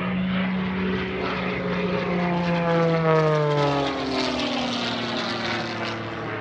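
An MXS aerobatic monoplane's piston engine and propeller running at high power on a fast pass. The note drops in pitch as the plane goes by, loudest about three seconds in, then carries on lower as it climbs away.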